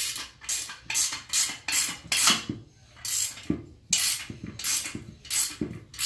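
Hand ratchet wrench clicking in quick repeated strokes, about two to three a second with a couple of brief pauses, as bolts are run down tight on a rear differential mounting bracket.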